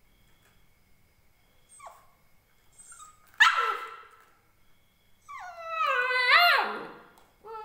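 Indian Spitz puppy gives a couple of faint squeaks, then a single sharp bark about three and a half seconds in. It follows with a long, drawn-out whining howl of about two seconds that dips, rises and falls in pitch, and starts another whine near the end.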